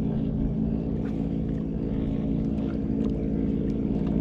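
The engine of a jukung outrigger boat running at a steady speed, an even drone that doesn't change.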